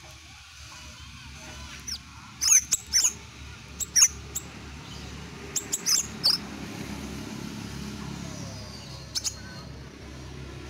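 Caged sepah raja songbird giving a run of short, sharp chirps that drop steeply in pitch, bunched between about two and six seconds in, then a quick pair later on, over a steady low rumble in the background.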